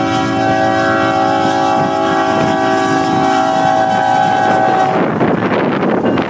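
Train locomotive horn held in a long chord of several notes, cutting off about five seconds in, then a rushing noise.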